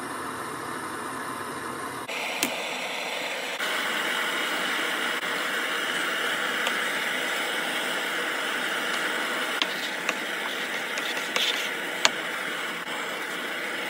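Butane blowtorch burning with a steady hiss, with a few sharp clicks near the end.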